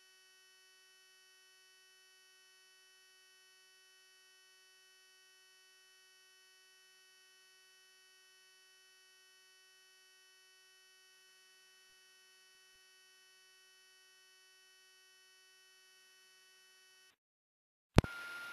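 Very faint steady electrical hum made of many fixed tones, close to silence. It cuts off suddenly near the end, then a click and a steady high tone start.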